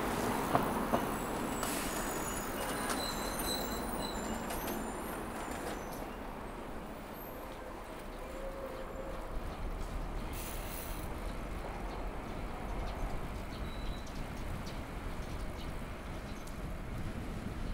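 Steady road traffic noise with a low wind rumble on the microphone during a bicycle ride. A few short, high chirps come in the first few seconds.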